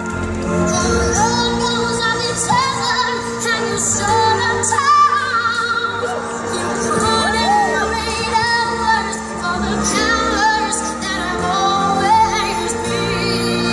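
Live musical-theatre number: young female voices singing over a backing track, played through a stage PA.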